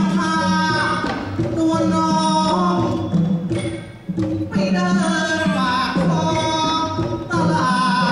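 Likay singing: a male and a female performer trade sung lines into microphones over instrumental accompaniment, with a brief break about four seconds in.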